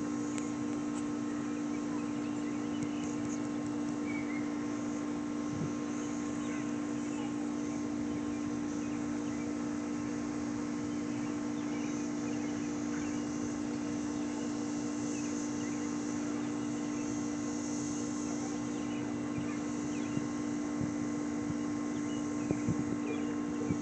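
Steady mechanical hum of an outdoor air-conditioning unit running, with a faint high insect drone above it and a few light knocks near the end.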